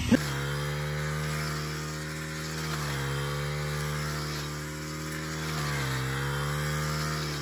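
Petrol brush cutter running at high revs while cutting tall grass, its engine note steady but dipping briefly in pitch twice, about three and six seconds in, as the blade takes load.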